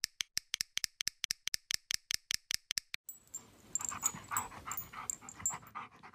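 A quick run of evenly spaced clicks, about seven a second, like keyboard typing, lasting about three seconds and stopping abruptly. Then a dog panting with high little whimpers.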